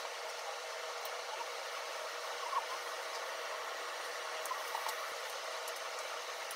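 Steady background hiss in a kitchen. Faint soft clicks and rustles come about two and a half seconds in and again near the five-second mark, as hands arrange raw pork slices and tuck them into a pot of napa cabbage.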